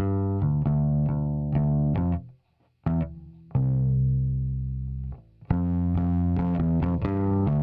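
Electric bass played in a quick run of plucked notes through a Toneloc Level-Loc compressor. The run breaks off about two seconds in, a single note is held for about a second and a half, and the quick notes start again about five and a half seconds in.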